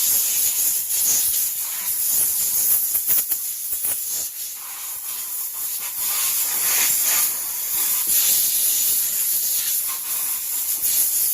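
Loud, steady hissing of a cleaning jet blasting a chainsaw cylinder, easing off a little a couple of times.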